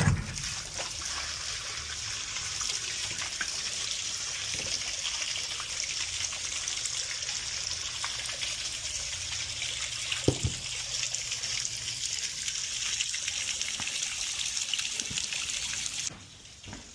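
Water rushing out of a hot boiler as it is drained: a steady hiss that cuts off suddenly near the end. A single clunk comes about ten seconds in.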